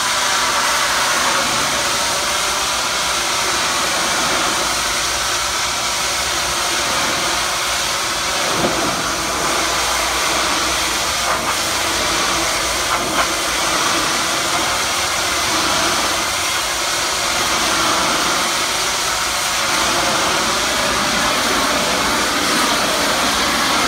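Hot-water pressure washer jet spraying against a brick wall: a steady hiss that runs without a break, with a few faint ticks about halfway through.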